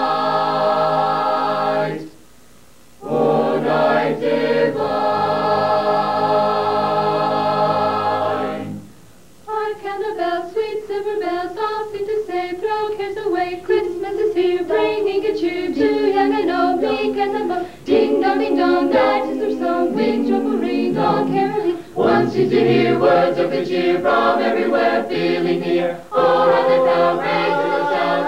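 Mixed a cappella choir of men's and women's voices singing, no accompaniment. Long held chords, broken by two short pauses early on, give way about nine seconds in to a quicker passage of short, moving notes.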